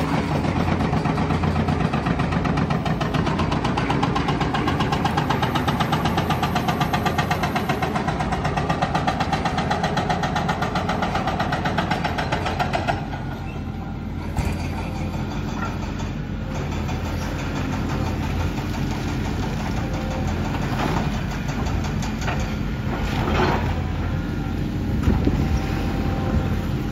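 Diesel engines of demolition machinery running steadily, with a denser, pulsing sound for the first half that changes and eases about halfway through. A few short knocks and crashes follow in the second half, consistent with debris being struck or falling.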